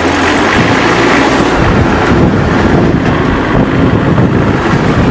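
Mini round hay baler running steadily and loudly, a dense rapid mechanical clatter over the drive noise.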